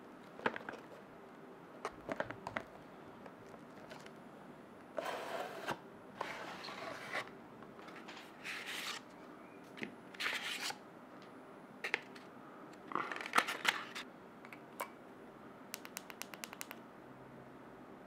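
Hands unboxing a small boxed gadget: a cardboard box and its paper inserts sliding, scraping and rustling in short bursts, with scattered clicks. Near the end comes a quick run of about ten light ticks.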